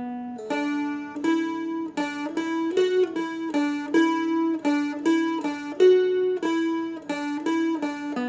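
Seagull Merlin picked with quick alternating flatpick strokes, a short lead line of three or four notes repeated over a steady ringing drone string.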